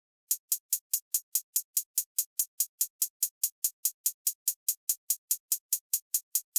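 Programmed drum-machine hi-hat playing solo: an even run of short, bright ticks at about five a second, starting about a third of a second in.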